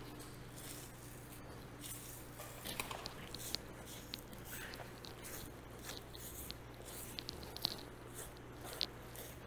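A 6-inch Victorinox curved knife slicing a bison hide away from the carcass: a run of short swishing strokes and crisp ticks as the blade cuts through the tough, dry hide. A low steady hum sits underneath.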